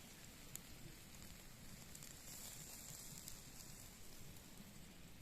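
Near silence: a faint steady hiss, with one small click about half a second in.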